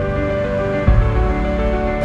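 Background music with sustained notes; a new low note comes in about a second in.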